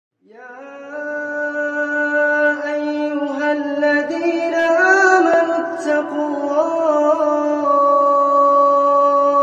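A single voice in Quran recitation (tilawat), chanting slowly and melodically. It glides up into its first note and holds long notes, with ornamented turns around the middle.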